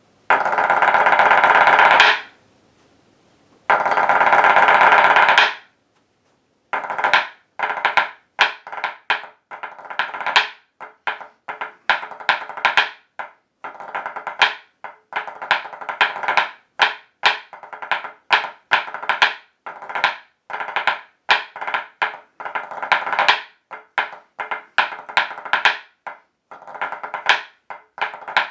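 Hornpipe step danced in hard-soled dance shoes on a wooden floor: two long, rapid rolls of taps in the first few seconds, then a brief pause and a steady rhythmic run of sharp taps and beats.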